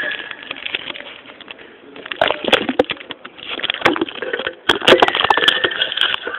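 Irregular clicking and rattling from a bicycle's rear end, chain and coil-over hydraulic shock absorber as the bike is handled, with a thin squeak held for about a second near the end.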